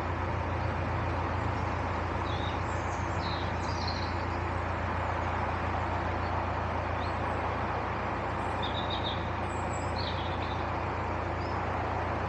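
A narrowboat's engine running steadily at cruising speed, a constant low hum. Birds chirp over it several times.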